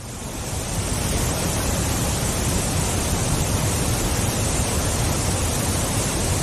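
Waterfall: a steady, loud rush of falling water, fading in over the first second.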